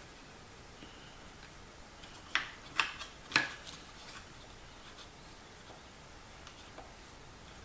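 Three sharp clicks, about half a second apart, of small parts being handled as the carburetor is worked off a Ryobi 825R four-stroke string trimmer engine; otherwise faint handling noise.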